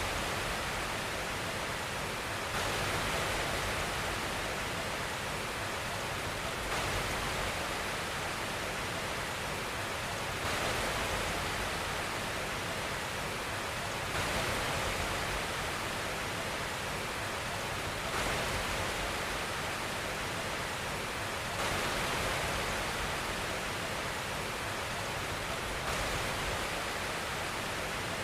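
Steady, even white noise of the kind played as a baby sleep aid: a constant hiss with no tone or rhythm. It gets slightly louder and brighter for a moment about every four seconds.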